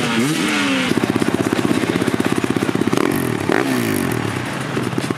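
Single-cylinder enduro dirt bike engines at the start gate: revs falling away in the first second, then an engine idling close by with a fast, even putter, and another bike briefly revving up and down about three and a half seconds in.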